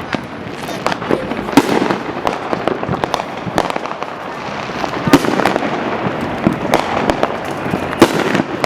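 Many fireworks going off at once: a constant run of overlapping sharp bangs and crackling, with the loudest bangs about one and a half, five and eight seconds in.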